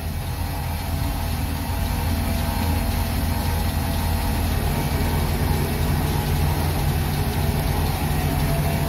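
MerCruiser 5.7-litre EFI V8 inboard engine idling steadily and smoothly, running on its newly installed alternator.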